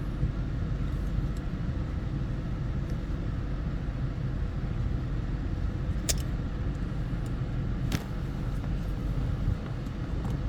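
Two sharp taps, about six and eight seconds in, as the console latch pin is knocked into place, over a steady low rumble.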